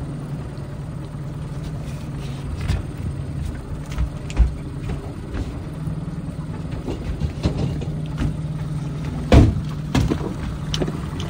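Boat engine running steadily while trolling, a low even hum, with a few short knocks and thumps from handling in the boat, the loudest about nine seconds in.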